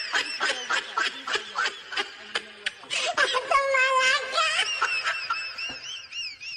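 People laughing in quick short bursts, with a long high-pitched vocal cry about three to four seconds in.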